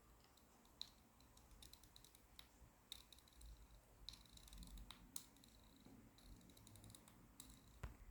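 Faint, irregular clicks and light taps of small hard parts being handled, some with a short bright ring.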